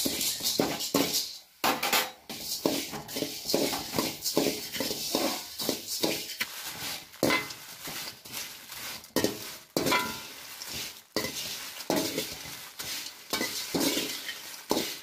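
Metal spatula scraping and stirring dried chana dal, then dried red chillies, in a large metal pan: a rattling, scraping run of quick strokes, a few a second.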